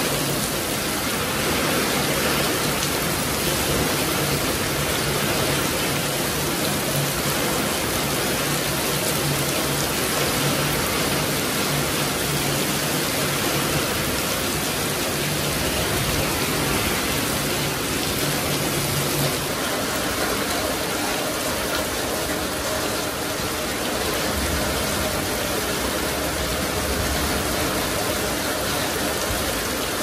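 Heavy rain pouring steadily onto a flooded paved yard, an even unbroken hiss and patter.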